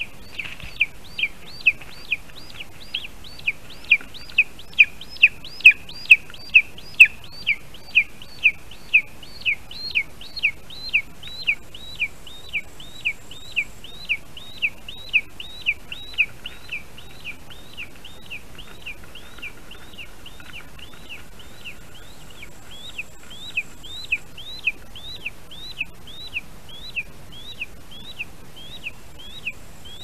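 Lesser spotted eagle calling: a long series of short, sharp, high yelping notes, about two a second, loudest in the first half and fainter toward the end.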